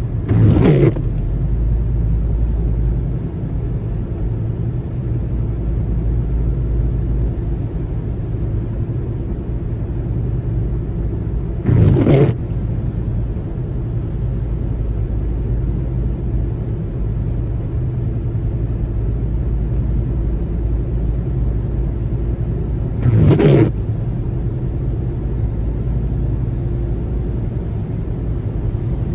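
Steady road noise inside a moving car on a wet road: tyre hiss and engine hum. Three brief louder swishes come at even intervals about eleven seconds apart.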